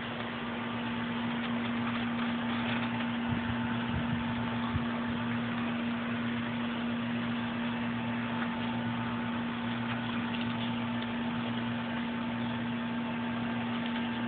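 A steady low machine-like hum over an even hiss, with a few faint knocks about three to five seconds in.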